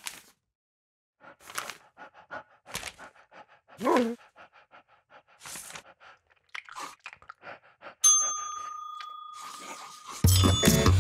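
Cartoon sound effects: short scratchy marker-on-paper scribbling strokes, with a brief wavering squeak about four seconds in. A bell dings about eight seconds in and rings out for about two seconds, then music with a steady bass starts near the end.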